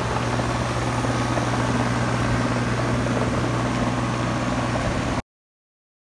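Ruud Achiever heat pump outdoor unit running: a steady hum with a strong low tone under a broad rushing noise. It cuts off suddenly about five seconds in.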